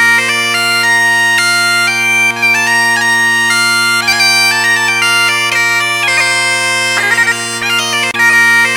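Bagpipes playing a quick melody over steady droning notes, cutting off abruptly at the very end.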